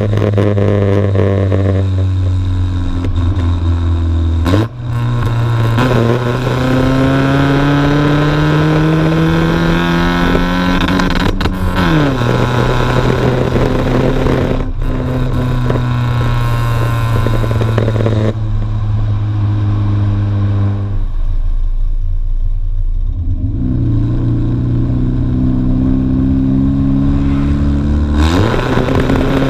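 Honda Civic EJ9's D14 1.4-litre four-cylinder engine heard at its de-catted exhaust while driving. The engine note climbs and drops in pitch as it accelerates and changes gear, easing off for a few seconds past the middle before pulling again.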